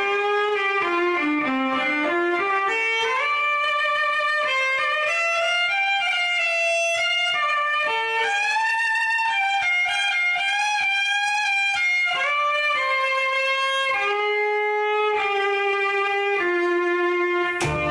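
Background music: a violin playing a slow melody of held notes, stepping down and then climbing; a low note comes in near the end.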